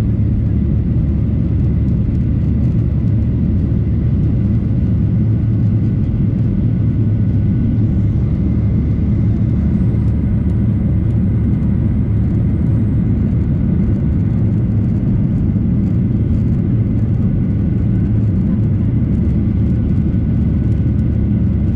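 Cabin noise of a Boeing 737-800 climbing after take-off, heard inside the cabin: its CFM56-7B engines at climb thrust and the airflow past the fuselage make a steady low rumble, with a faint steady whine above it.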